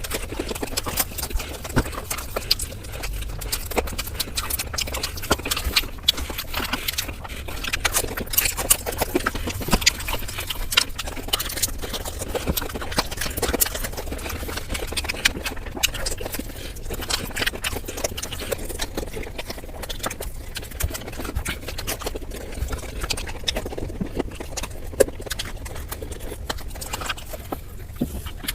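Close-miked eating sounds, sped up: a continuous rapid stream of crisp crunches, crackles and chewing clicks from biting into crispy fried chicken.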